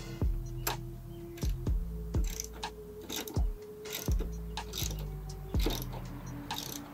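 Socket ratchet wrench clicking in short bursts as it drives in a grille mounting screw, over a background music beat.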